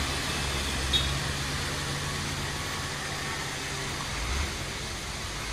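Heavy tanker truck's diesel engine running low and steady as it creeps down a steep hairpin bend, over a steady hiss of road and outdoor noise. A short sharp click about a second in, and the engine rumble swells slightly near the end.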